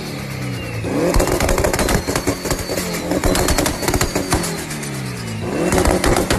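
Turbocharged car engine revved with anti-lag, popping and banging rapidly from the exhaust. The revs drop just after the start and again about five seconds in, then climb, over a thin high turbo whistle.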